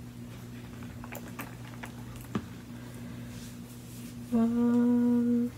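A woman humming a steady, level 'mmm' for about a second near the end, a thinking sound while she chooses a washi tape colour. Before it there are only a few faint clicks of handling.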